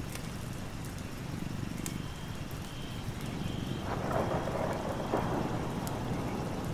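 Thunderstorm: steady rain with a low rumble of thunder and a few sharp drips, the rain swelling briefly about four seconds in.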